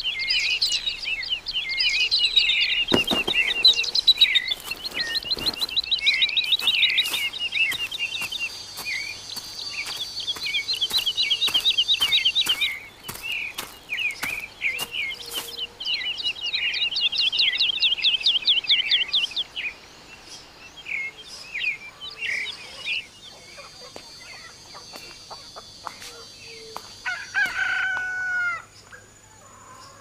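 Several birds singing fast trilling phrases and chirps, with scattered sharp clicks. Near the end a rooster crows.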